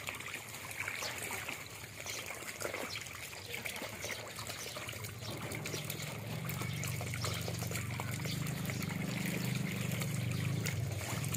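Water trickling in a crowded frog pen, with many small splashes and clicks as the frogs shift in the shallow water. From about five seconds in, a low steady hum joins and grows louder.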